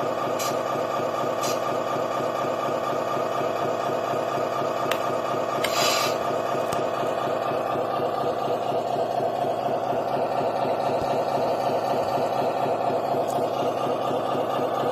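Scale RC truck's electronic sound unit playing a diesel engine idle through its small speaker: a steady, evenly pulsing idle. A few light clicks and a brief rattle come about six seconds in.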